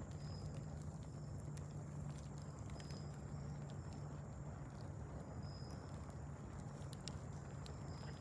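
Wood fire crackling, with scattered sharp pops over a steady low hum. A short high chirp repeats about every two and a half seconds.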